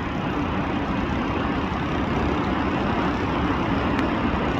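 Steady road traffic noise, growing slightly louder.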